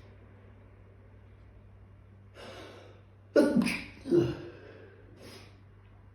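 A person sneezing: a breathy intake of breath, then a loud sneeze in two quick bursts a little past halfway, followed by a short breath.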